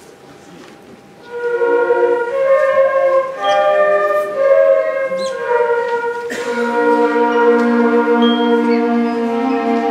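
Elementary school concert band playing. After a soft pause the band comes back in a little over a second in with a moving melody, and a percussion hit about six seconds in brings in held low notes under it.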